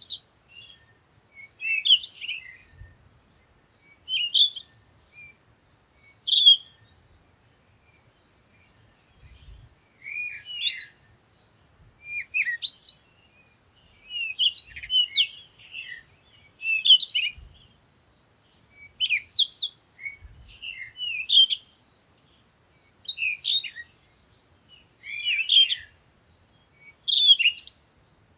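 Songbirds chirping in the morning: short, quick phrases of high chirps and twitters, one about every two seconds with brief pauses between.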